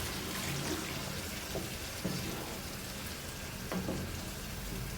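Water being poured into a pot of simmering tomato and coconut-cream sauce, a steady hiss with a few light knocks.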